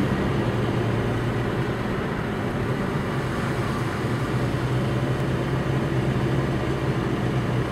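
Steady car cabin noise while driving: engine hum and road noise, heard from inside the car.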